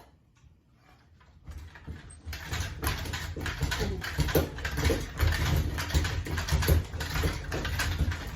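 A damaged ceiling fan starting up about a second and a half in: it runs with a low hum under a fast, uneven clattering that gets louder as it picks up speed, a sign the battered fan can't spin true.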